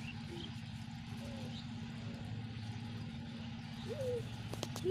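A steady low hum like a small motor running. Near the end it is joined by a couple of short rising-and-falling calls and two sharp clicks.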